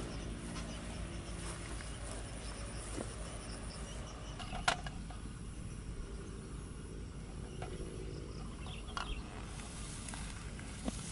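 Quiet outdoor ambience with a steady low rumble and faint insects, broken a little before halfway by a single sharp knock as a carved wooden kuksa cup is hung on a sapling branch beside a metal mess tin, with a couple of lighter clicks later on.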